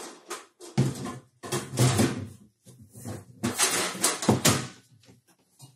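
Irregular knocks, thuds and scrapes of wooden panels and framing being handled.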